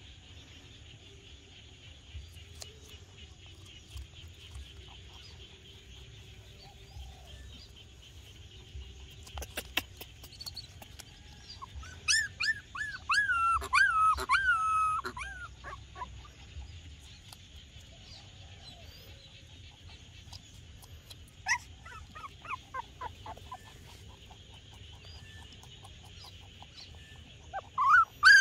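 Young puppies whimpering: a run of high, wavering whines about halfway through, then a few shorter whines later on.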